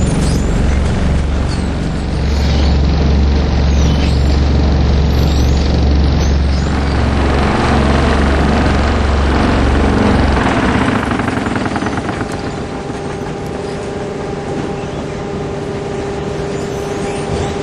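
Industrial plant machinery running loudly, with a heavy low drone and a rough noisy wash. About ten seconds in, the drone stops and a steadier, quieter whine carries on.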